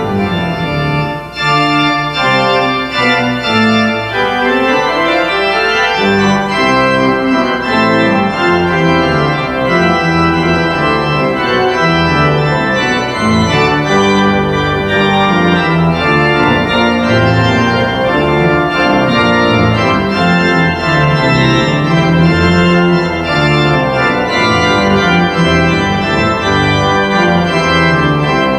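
Organ playing a steady piece in full sustained chords over a moving bass line, with the bass growing fuller about six seconds in.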